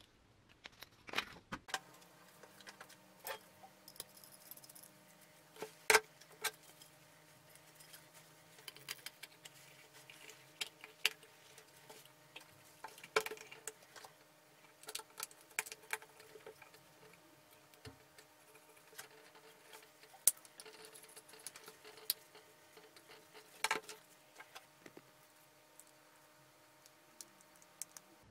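Irregular clicks, taps and light rattles of metal desk-lamp parts (base, gooseneck, fittings) being handled and fitted together on a wooden bench, with a few louder knocks among them, over a faint steady hum.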